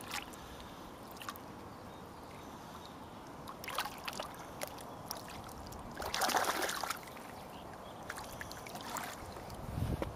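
Lake water splashing and sloshing in the shallows as a large tench is released and swims off: a few short splashes, the loudest about six seconds in.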